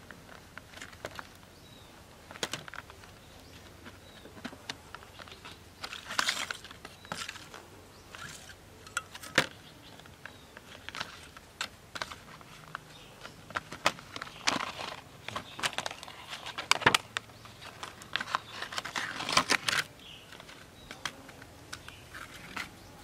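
Clear plastic blister pack crackling and clicking in irregular bursts as it is handled and opened to take out a metal nylon-line trimmer disc and its line.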